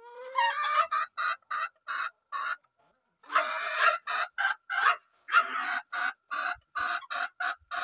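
Chicken clucking: a rising squawk at the start, then quick, evenly spaced clucks about three a second, broken by two longer squawks midway.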